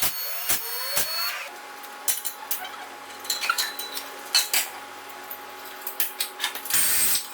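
Metal clinks and clanks of tools and exhaust parts while a car's stock exhaust system is unbolted and taken off. A steady hum runs underneath from about a second and a half in, with a short hiss near the end.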